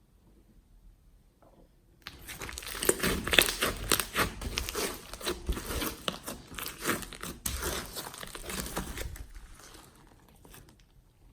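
Hands squishing and stretching glossy slime: a dense, wet-sounding run of crackles and pops that starts suddenly about two seconds in and fades away near the end.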